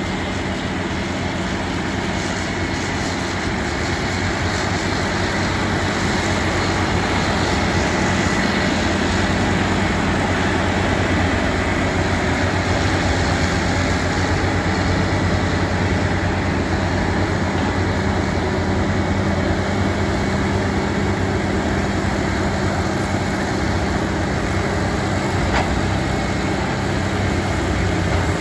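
Diesel engine of heavy earthmoving machinery (bulldozer or excavator) running steadily under load, a continuous low hum over a broad mechanical din.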